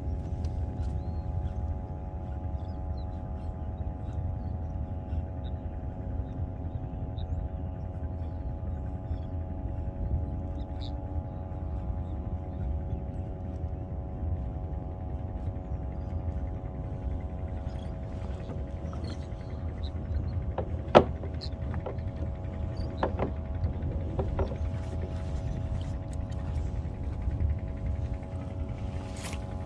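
Steady low rumble of wind and sea on the microphone under a constant faint hum, with one sharp click about 21 seconds in and a few faint ticks after it.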